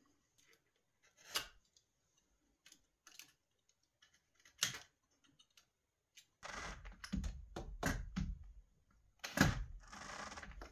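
Hand work on metal parts and tools: a couple of isolated sharp clicks, then rustling and clattering handling noise with another sharp click in the second half.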